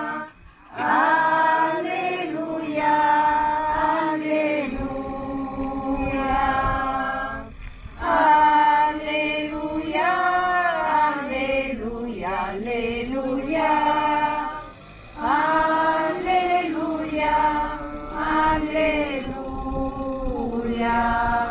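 Church choir singing the Alleluia, the acclamation before the Gospel at Mass, in long melodic phrases with held notes. There are short breaks about half a second in, near eight seconds and near fifteen seconds.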